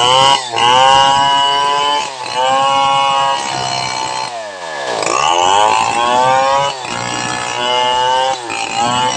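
Large home-built two-stroke chainsaw modelled on the Stihl 070, sawing through a medang log: its engine speed rises and falls repeatedly as the chain works in the cut, dipping several times and most deeply about five seconds in before picking up again.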